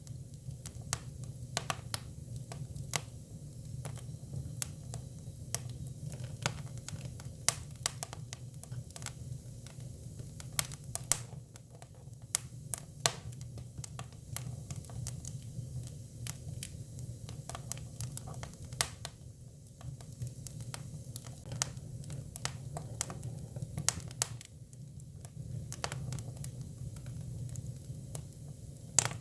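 Hinoki cypress firewood burning, crackling with irregular sharp pops, several loud, over a steady low hum.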